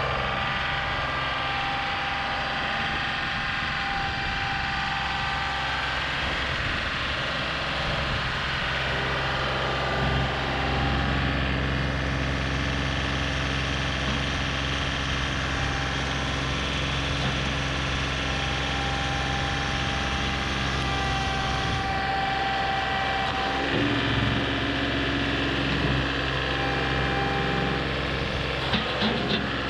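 Diesel engine of a John Deere compact tractor with a front-end loader, running steadily as the tractor drives up to a tree stump. The engine gets louder about ten seconds in, and its note shifts again near the end as the loader bucket meets the stump.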